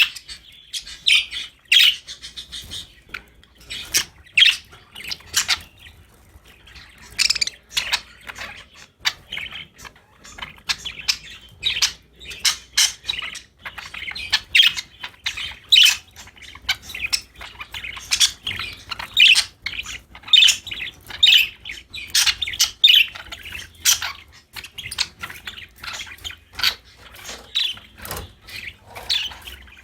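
Budgerigars chirping and chattering: a busy stream of short, high chirps and squawks with hardly a pause.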